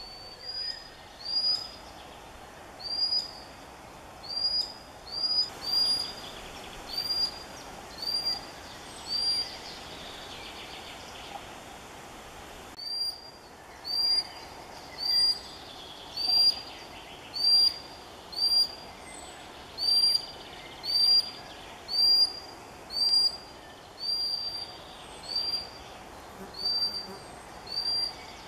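Common sandpiper giving piercing, repeated single-note calls, each a short upward-sliding whistle, about one a second with a brief pause about ten seconds in. These are the alarm cries of a parent guarding its hidden chicks.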